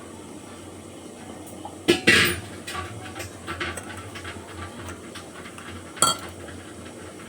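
Metal kitchen utensils knocking and clinking against a cooking pot: two sharp knocks about two seconds in, lighter clinks after them, and another sharp knock near six seconds, over a steady low hum.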